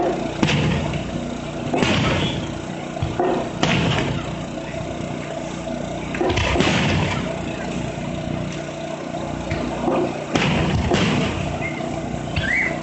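Festival fireworks going off: a string of deep booms, about seven in twelve seconds, each trailing off in a rumble, over a steady background din.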